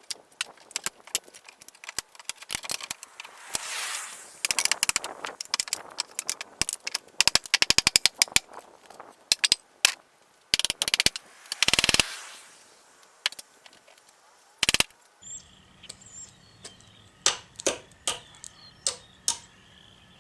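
Old wooden door-frame rail being pried and knocked loose: a string of sharp knocks and cracks of wood and nails, with a run of rapid clicks partway through.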